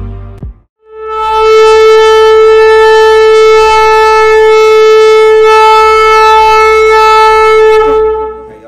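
A shofar sounded in one long, steady blast of about seven seconds. The pitch drops briefly just before it stops.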